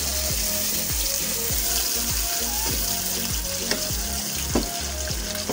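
Sliced onions sizzling steadily as they fry in hot oil in a nonstick pan, being softened. A wooden spoon stirs them, with a couple of light knocks in the second half.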